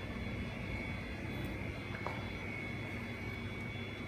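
Steady drone of running repair-bench machinery, with a thin high whine held on one pitch over a low hum, and a faint click about two seconds in.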